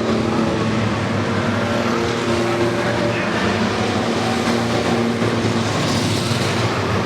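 Engines of a field of race trucks running at speed, a steady mix of several overlapping engine notes.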